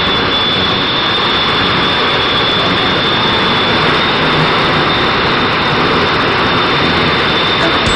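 Jet engines of jet-powered drag trucks running steadily on the start line: a loud, even rushing noise with a steady high-pitched whine over it.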